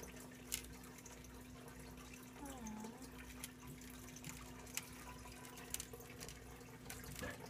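Faint water drips and small splashes in an aquarium tank as a young American alligator moves through the shallow water with a mouse. Scattered sharp clicks sound over a steady low hum.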